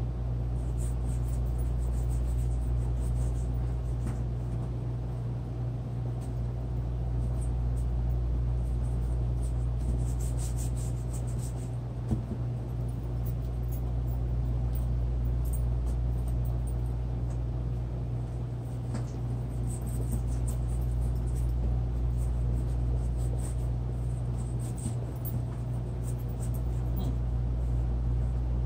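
A steady low hum throughout, with faint, irregular scratching of a paintbrush working on canvas and a single sharp tap near the middle.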